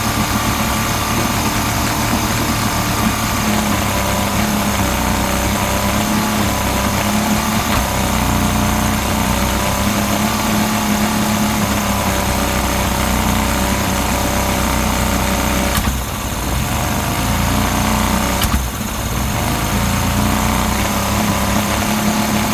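Yamaha 50D engine running at a steady idle with a misfire. Twice, about 16 and 18.5 seconds in, a sharp click is followed by a moment where the running briefly drops off.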